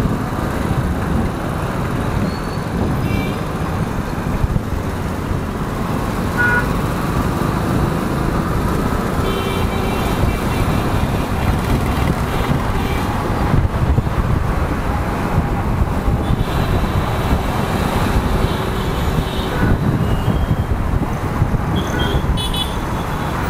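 City road traffic heard from a moving motorcycle: a steady rumble of engine and road noise, with vehicle horns tooting several times, about ten seconds in and again a few seconds later.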